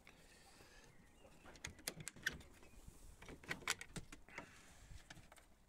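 Faint clicks and knocks of a sliding steel bolt latch on a wooden rabbit hutch door being worked, in two short bunches.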